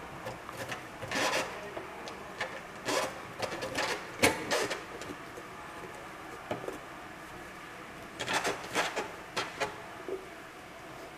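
Front cover of a Wanhao Duplicator 7 Plus resin printer being fitted back onto the case by hand: scattered knocks, clicks and scraping rubs as the panel slides into place and seats, most of them in two clusters around the middle and near the end.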